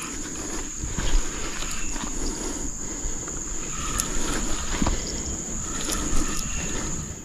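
Spinning reel being wound in on a hooked fish, with a few sharp knocks from handling the rod. A steady high-pitched insect drone runs throughout.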